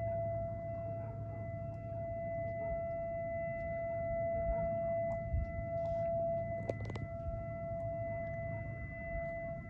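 Outdoor tornado warning sirens sounding a steady, unchanging tone, over a low rumble, with a couple of faint clicks about seven seconds in.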